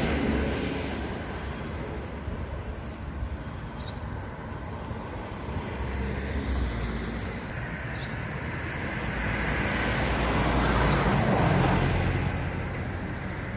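Street traffic: a steady wash of passing cars. One vehicle grows louder as it passes, about three-quarters of the way through, then fades.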